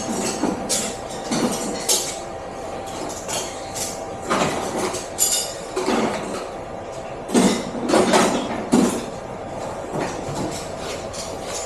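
Hand tools and metal parts clinking and knocking as an electric unicycle is taken apart, in scattered taps, with a run of louder knocks about halfway through.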